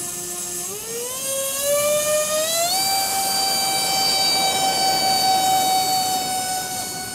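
Twin 70 mm electric ducted fans of an RC Boeing 737 MAX 8 model spooling up to takeoff power on the grass takeoff roll. A rising whine climbs in pitch over the first three seconds, then holds high and steady.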